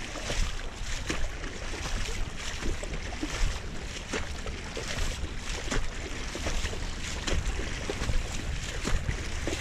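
Floodwater rushing and lapping across a road, with many small splashes, and wind buffeting the microphone as a steady low rumble.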